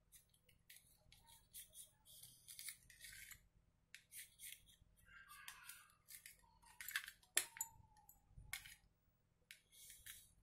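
Knife sawing the crusts off a slice of white bread: faint, short scraping strokes as the blade runs along the crust against the plate, with a sharper click about seven seconds in.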